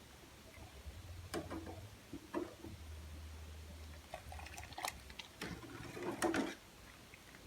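Kitchen handling sounds of cooking: a few light knocks and clinks of utensils and dishes with some liquid splashing, clustering into a louder run of clatter near the end.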